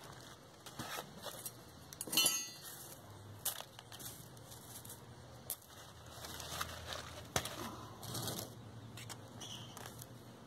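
Small pebbles clicking and rattling as they are poured and scooped from a plastic tub into a terracotta pot, loudest in a rattle about two seconds in, then scattered light clicks.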